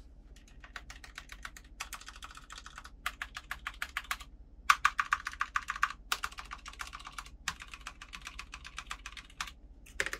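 Typing on an EVGA Z15 mechanical keyboard with lubed stabilizers: rapid keystroke clicks in bursts, with short pauses between them.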